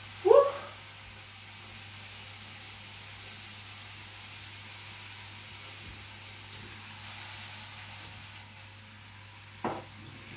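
Food sizzling gently in a pan on the stove, a steady hiss. A short, loud rising squeal comes right at the start, and a brief clatter near the end.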